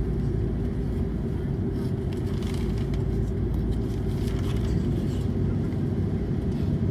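Steady low rumble inside the cabin of an Airbus A330-300 on the ground, heard from a window seat over the wing, from its Rolls-Royce Trent 700 engines at an even, unchanging level.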